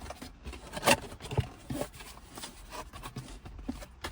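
A cardboard box and its packaging being opened and handled: irregular scraping and rustling with scattered clicks, one sharper snap about a second in.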